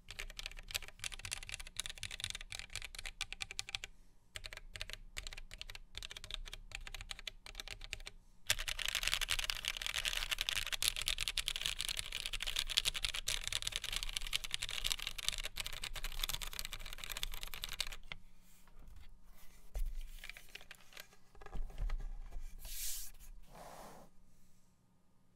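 Typing on a Geonworks W1-AT keyboard with lubed vintage Cherry MX Black linear switches mounted plateless on a thin 1.2 mm PCB, a sound the owner finds less full than he would like. Separate key presses at first, then about ten seconds of fast continuous typing from about eight seconds in. Near the end a few low knocks as the keyboard is handled and turned over.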